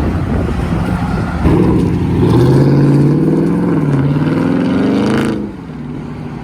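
Muscle car engine accelerating hard. The engine note comes in loud about a second and a half in, climbs in pitch, dips briefly, climbs again and falls away after about five seconds.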